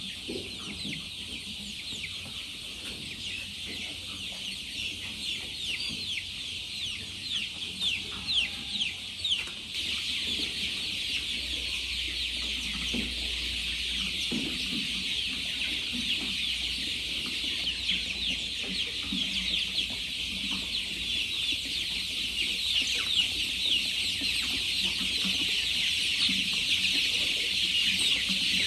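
Flock of birds calling together: a dense, continuous chorus of short high peeps, with a few lower calls now and then, growing slightly louder toward the end.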